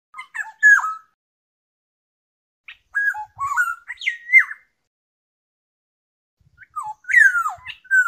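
Black-naped oriole calling: three short phrases of whistled notes that slide up and down in pitch, a couple of seconds apart.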